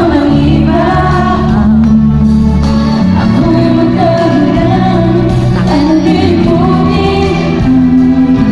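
Loud live pop music played over an arena sound system, with a woman singing the melody throughout.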